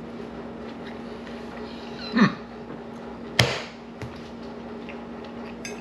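Tableware being handled: a short sound falling in pitch about two seconds in, then a sharp knock of a utensil against a dish, over a steady low hum.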